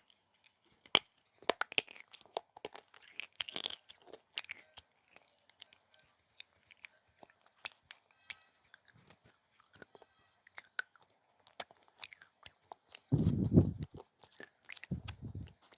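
Close-up crunching and chewing of hard baked clay (clay-pot pieces), a run of sharp brittle cracks and crackles as it is bitten and ground between the teeth. Near the end come two loud, dull low thuds.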